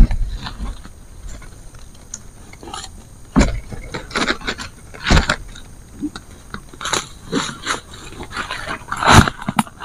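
Split bamboo strips being handled and bent into a shelter frame: irregular knocks, creaks and scrapes as the strips hit and rub against each other and the poles, with the sharpest knocks at about three and a half, five and nine seconds.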